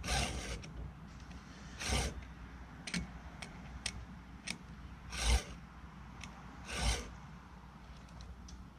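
STIHL 2-in-1 chain sharpener rasping across a saw chain's cutter. Its round file sharpens the tooth while its flat file takes down the depth gauge in the same stroke. There are four filing strokes of about half a second each, a second or two apart, with a few light clicks in between as the guide shifts on the chain.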